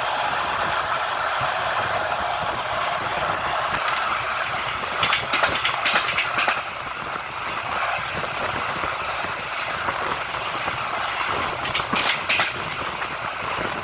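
Train wheels running over the rails with a steady rumble, and bursts of clickety-clack as the wheels cross rail joints, about four seconds in and again near the end.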